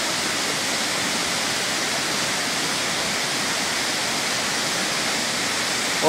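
Large waterfall rushing: a steady, even noise of falling water.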